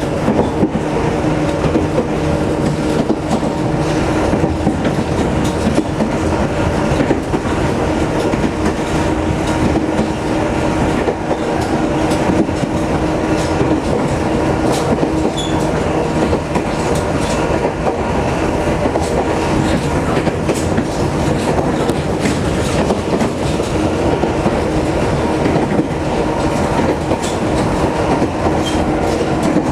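Sangi Line electric train running at a steady speed, heard from inside the car: wheels rumbling on the rails, clicking over rail joints, under a steady hum.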